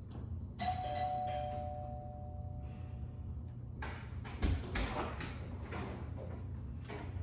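Two-tone doorbell chime: a ding-dong, the second note a little lower, ringing out and fading over about two seconds. A few short thumps follow about four seconds in.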